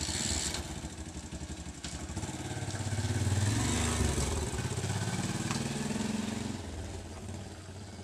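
A small motorcycle engine pulling away and riding past, getting louder to a peak about three to four seconds in, then fading as the bike moves off down the lane.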